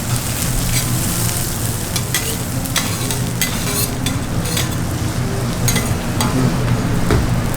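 Food frying and sizzling on a hot griddle, a steady hiss broken by repeated short clicks and scrapes of utensils against the cooking surface.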